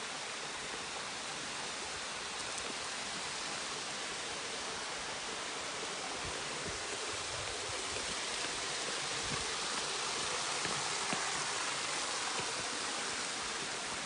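Waterfall's falling water making a steady, even rushing noise.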